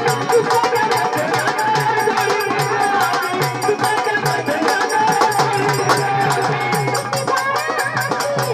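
Marathi folk music: a murali's singing voice over a fast, steady percussion beat.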